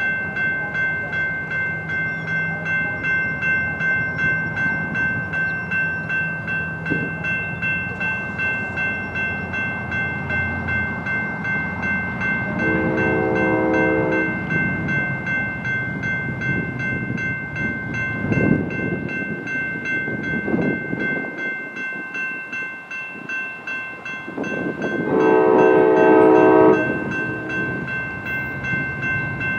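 Railroad crossing signal bell ringing steadily in an even pulse as an Amtrak locomotive approaches, its horn sounding about halfway through and again, longer and louder, near the end.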